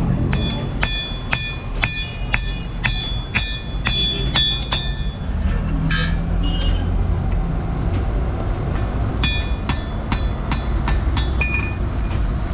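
Blacksmith's hand hammer forging bearing steel on an anvil: ringing blows at about two a second for several seconds, a short pause, then another run of blows. A steady low rumble runs underneath.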